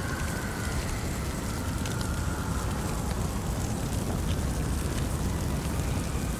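Fire burning steadily: a low, even rushing noise with scattered faint crackles.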